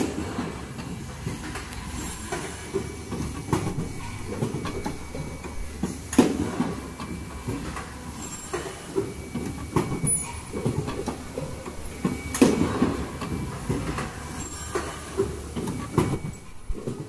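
Automatic N95 cup mask production line running: a steady machine clatter with a louder mechanical clack about every two seconds, and a brief very high-pitched tone about every six seconds.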